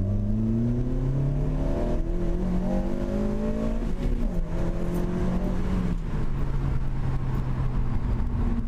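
Honda Civic Type R FN2's 2.0-litre K20 four-cylinder through a Milltek resonated cat-back exhaust, heard from inside the cabin while driving. The engine note climbs as the car accelerates, dips about four seconds in, then settles to a steady lower drone.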